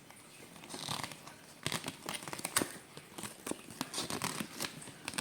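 Packaging being handled, crinkling and rustling. From about a second and a half in it becomes a quick, irregular run of crackles.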